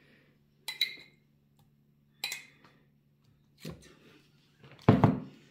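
Metal spoon clinking against a glass jam jar, two short ringing clinks as jam is scooped out, then duller knocks of the spoon against the pastry and baking tray, the loudest near the end. A low steady hum runs underneath.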